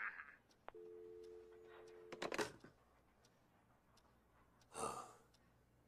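Faint telephone sounds after a call ends: a click, then a steady two-note telephone line tone for about a second and a half, broken off by a few clicks. About five seconds in, a short rush of noise.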